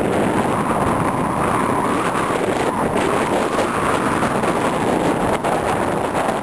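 Steady rush of wind buffeting the microphone over the running noise of a vehicle driving along a dirt track, heard from on board the vehicle.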